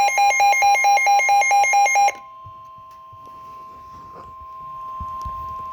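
Weather alert radio's alarm beeping loudly in a rapid two-pitch warble for about two seconds. It then gives way to the steady single-pitch NOAA Weather Radio warning alarm tone, which signals that a warning is being broadcast.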